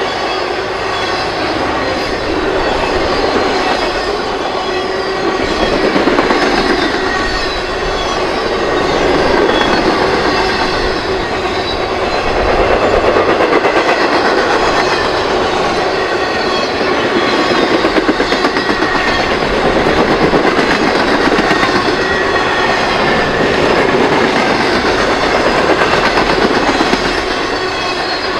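Intermodal freight train cars rolling past, steel wheels clicking and rumbling over the rail joints, with faint thin wheel squeal on top. Loud and continuous, swelling and easing as the cars go by.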